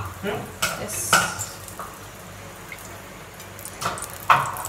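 Metal spatula and ladle clinking against non-stick frying pans, several sharp knocks, over a faint steady hiss. Near the end, melted oil and dalda drip from a ladle onto the pan.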